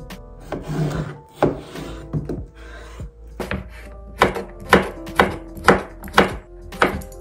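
Kitchen knife cutting a cucumber on a wooden board. Softer slicing strokes come through the first half, then sharp chops of the blade onto the board about two a second, six in all, in the second half.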